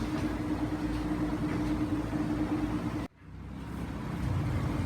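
Steady low background hum with one held tone, which cuts out abruptly about three seconds in and fades back up over the next second.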